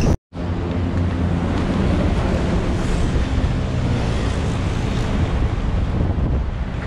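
Steady wind buffeting the microphone of a moving rider, over a low rumble of wheels rolling on a concrete path. The sound drops out completely for a moment just after the start, then carries on unchanged.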